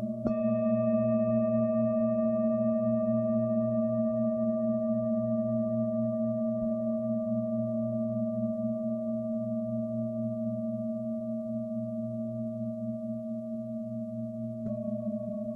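Tibetan singing bowls struck and ringing, a low hum with several overtones that waver slowly and fade over many seconds. A fresh strike comes just after the start and another near the end.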